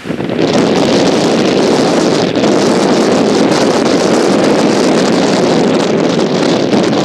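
Wind buffeting the camera microphone: a loud, steady rumbling noise that jumps up just after the start.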